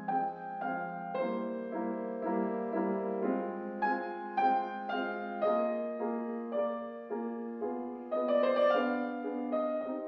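Calm instrumental music: a slow melody of single ringing notes, each starting sharply and fading, over sustained low notes, a little fuller and louder about eight seconds in.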